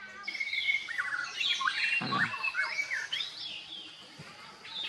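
Birds chirping and squawking, many short calls overlapping, with a brief low thump about two seconds in.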